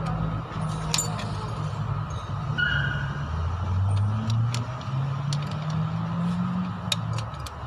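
A motor vehicle engine running, its pitch rising and falling, with scattered light metallic clinks.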